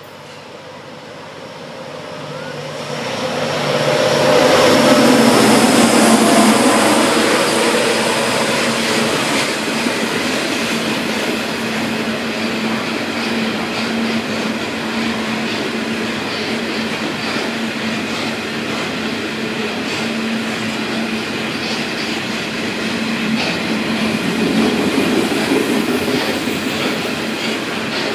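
Freight train passing: a diesel locomotive comes up and goes by, loudest about four to seven seconds in. A long string of loaded hopper wagons follows, rolling past steadily with repeated wheel clicks over rail joints and a steady tone.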